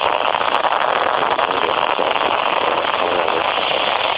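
Rain falling steadily, with a dense crackling patter of drops close to the microphone.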